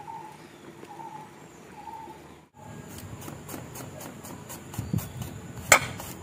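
Potatoes boiling in a steel pot, with a faint short chirp repeating about once a second. Then a kitchen knife chops garlic cloves on a wooden cutting board in quick taps, about three or four a second, with one louder knock near the end.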